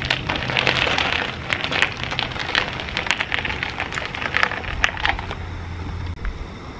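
Trunk bag being handled on the bike's rack: irregular rustling with sharp plastic-like clicks and crackles, stopping about five seconds in.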